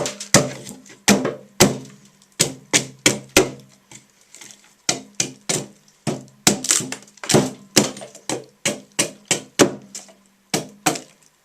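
Repeated sharp chopping strikes into a pine slab, two or three a second with a short pause near the middle, cutting rough pieces off the wood.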